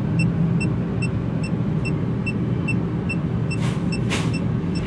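Electronic refrigerant leak detector beeping at about two and a half short high beeps a second, its slow searching rate while no leak is sensed. Under it runs a steady low machinery hum, with two brief hisses near the end.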